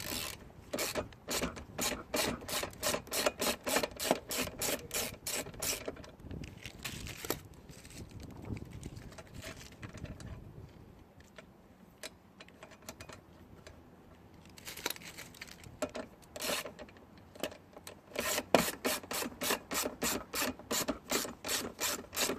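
Hand ratchet wrench clicking in runs of quick, even strokes, about three to four a second, working on a car seat's bolts, with a quieter stretch of scraping and handling in the middle.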